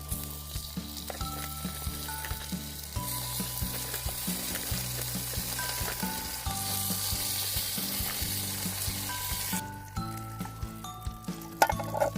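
Food sizzling as it fries, the hiss growing louder about three seconds in and cutting off suddenly near the end.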